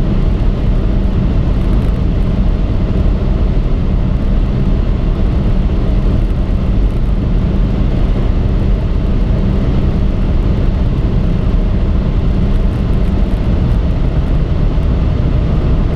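Cabin noise of a chip-tuned BMW 116i F20 at top speed, about 245 km/h: its 1.6-litre turbocharged N13 four-cylinder holding near 6,000 rpm in a steady, loud drone mixed with wind and tyre noise.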